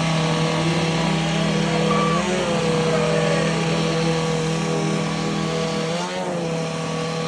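An engine running at a steady speed, with its pitch wavering briefly twice, about two and six seconds in.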